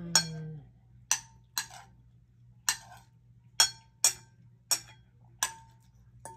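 Spoon and fork clinking against a plate while eating: about eight sharp, separate clinks at uneven intervals, each with a short ring.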